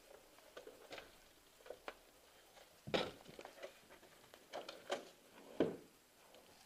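Quiet, irregular rustling and soft knocks of a player moving on foot with gear down a carpeted hallway, with two louder brief knocks about three seconds in and about five and a half seconds in.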